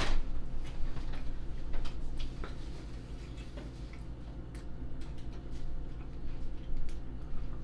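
Scattered light clicks and ticks, irregularly spaced, over a steady low hum.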